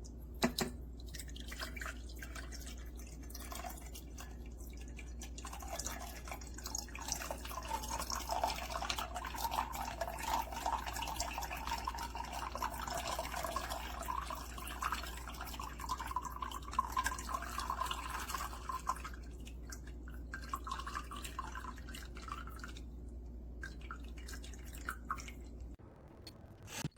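Cuisinart PerfecTemp stainless electric kettle heating water: a dense crackling and bubbling from the water, busiest in the middle stretch, over a steady low hum that cuts off near the end.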